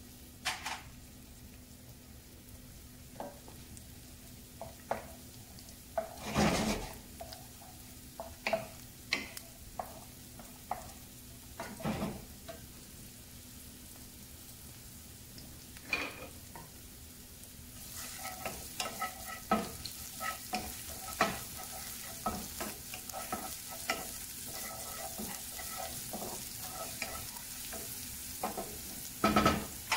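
Chopped onion frying in oil in a cast-iron skillet: scattered pops at first, then from about two-thirds of the way in a steadier sizzle with dense crackling as the pan heats up. A few louder knocks and scrapes of a wooden spoon and spatula, the loudest just before the end as the onions are stirred.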